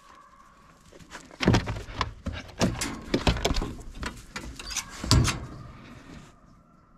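Metal dog box on a pickup bed knocking and rattling, with a handful of sharp knocks between about a second and a half and five seconds in.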